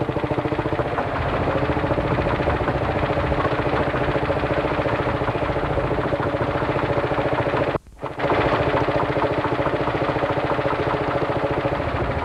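Lanz Bulldog tractor's single-cylinder two-stroke hot-bulb engine running, a steady rapid knocking beat. The sound cuts out for a moment about eight seconds in.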